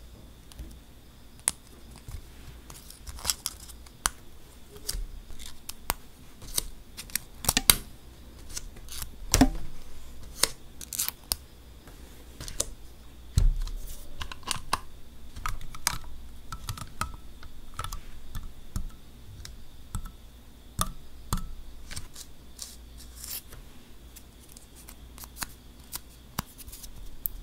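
Clear plastic full-cover nail tips being snapped off their plastic runner one by one: a string of sharp, irregular plastic clicks and snaps, with a few soft knocks as tips are set down.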